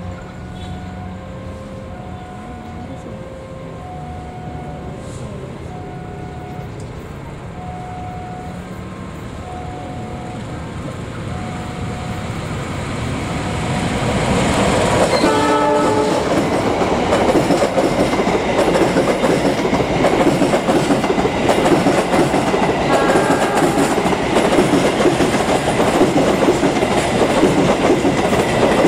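A repeating two-tone warning chime, about one beep a second, typical of a level-crossing alarm. About halfway through, a diesel locomotive gives a short horn blast and a passenger train passes close by, its coaches' wheels clattering loudly over the rail joints.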